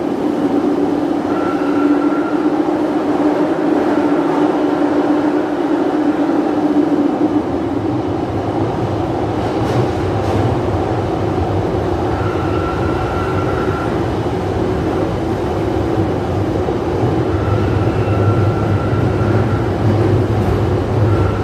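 London Underground Jubilee line 1996 Tube Stock train running underground, heard from inside the carriage. A loud, steady rumble with a hum that fades about seven seconds in as a deeper rumble takes over, and a few brief high tones.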